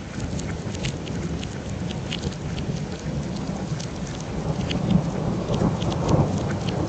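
Steady rain with close drops ticking sharply, under a low thunder rumble that swells about five to six seconds in.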